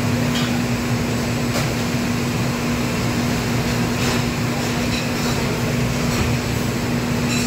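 Steady rushing hum of a commercial kitchen's ventilation and wok burners, with a few light clinks of metal utensils and bowls.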